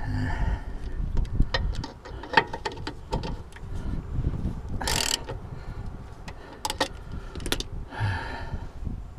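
Hand socket ratchet clicking and clanking as it works tight, rusty U-bolt nuts on a leaf-spring rear axle, in irregular metallic clicks with a short harsh rasp about five seconds in.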